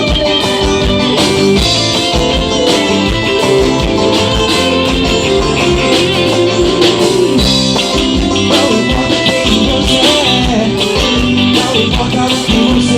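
Live gospel band playing loudly, led by electric guitar over a steady drum beat.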